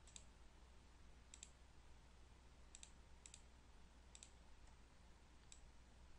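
Faint computer mouse clicks, about five of them a second or so apart, each a quick double tick of press and release, over quiet background hiss and a low hum.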